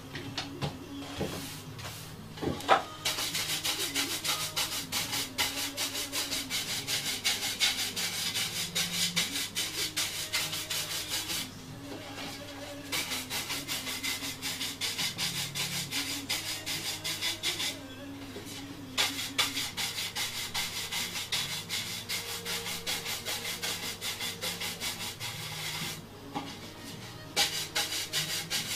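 Hand sanding of a carved wooden panel: quick back-and-forth rubbing strokes, several a second, in long runs that stop briefly three times.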